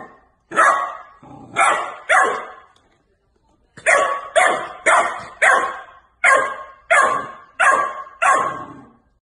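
Golden retriever puppy barking at a mop in play: about a dozen short, sharp barks, with a pause of about a second near the middle.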